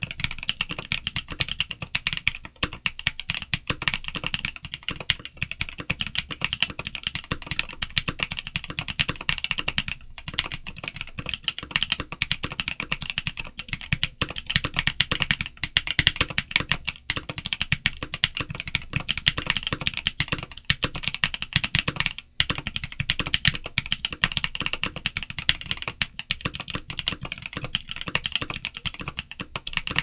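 Fast, continuous typing on an MKC75 mechanical keyboard built top-mount with case foam and PCB sheet foam, fitted with Kailh Cream linear switches and DS-profile ABS keycaps: a dense stream of keystrokes with a brief pause a little over 20 seconds in.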